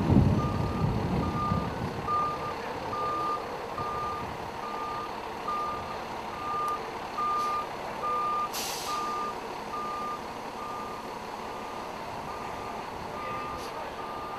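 Fire engine's reversing alarm beeping about twice a second as the truck backs into the firehouse bay, over the low rumble of its diesel engine, which is loudest at the very start. A short hiss comes about eight and a half seconds in.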